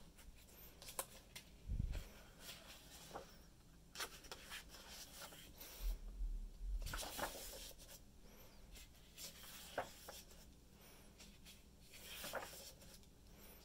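Pages of a large-format art book being turned by hand: repeated paper rustles and slides, with a couple of low, dull bumps, about two seconds in and again around the middle, as the pages are handled.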